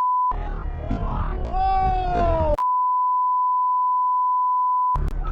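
Steady one-tone censor bleep, broken into stretches; the longest lasts about two and a half seconds and covers swearing. Between the bleeps is noisy protest audio with a loud, drawn-out falling shout.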